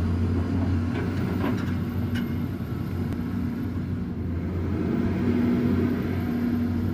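An engine running steadily with a low, even hum and a few faint clicks in the first couple of seconds.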